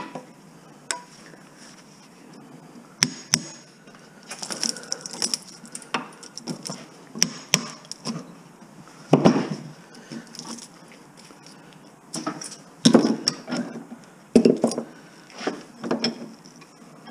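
Scattered metal clanks, clinks and scraping of hand tools working on scrap electric motor stators, with a few louder knocks.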